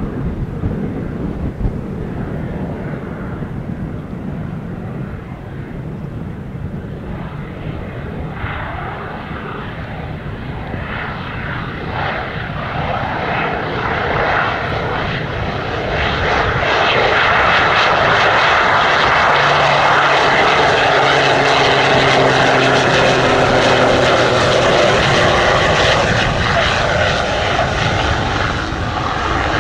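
Air Tractor AT-802 single-engine turboprop (Pratt & Whitney PT6A) on its landing approach. The engine and propeller grow louder as the plane closes in and are loudest and steady through the second half.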